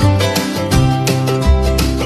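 Background music: plucked acoustic guitar with bass notes, in a steady rhythm.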